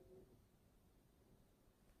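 Near silence: room tone, with a faint grand piano chord dying away in the first moment.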